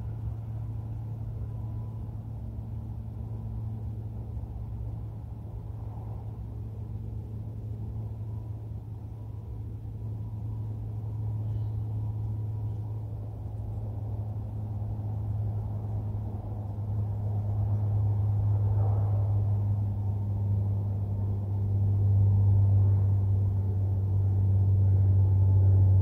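Low, steady engine rumble that swells louder through the second half.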